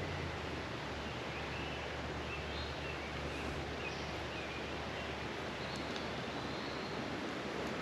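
Steady rush of flowing creek water, with a low hum underneath for a few seconds and a few faint bird chirps.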